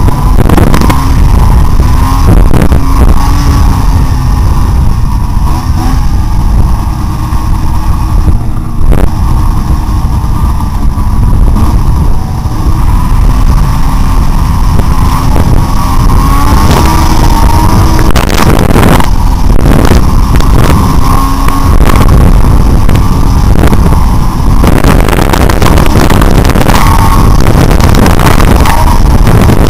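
Arctic Cat snowmobile engine running, its pitch rising and falling with the throttle, under heavy wind buffeting on the helmet-camera microphone. Occasional sharp knocks as the sled jolts over bumps.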